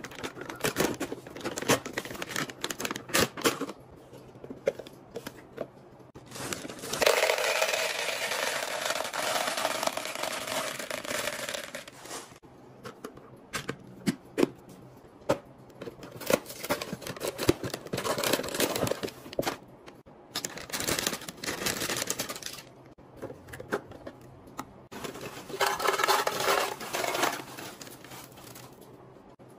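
Snack-restocking handling sounds: a plastic M&M's bag torn open and crinkled, M&M's poured into a plastic dispenser for several seconds, many short clicks and taps of plastic, and crackers poured from a bag into a clear jar near the end.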